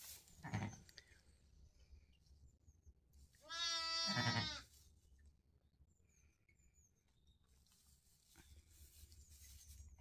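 A Zwartbles sheep bleats once, a wavering call about a second long, a few seconds in. A brief low sound comes just after the start, and the rest is faint.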